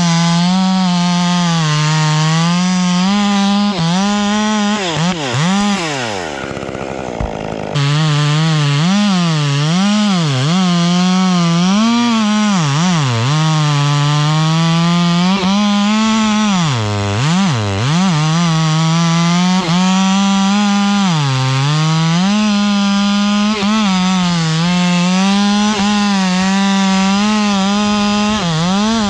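Chainsaw running at high revs and cutting pine wood, its pitch dipping and recovering again and again as the chain loads up in the cut. Around six to seven seconds in it drops back to a lower, quieter speed, then returns abruptly to full throttle.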